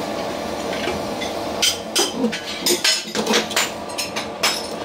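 Tile work being tapped into place: a quick, irregular run of about a dozen sharp knocks starting about a second and a half in.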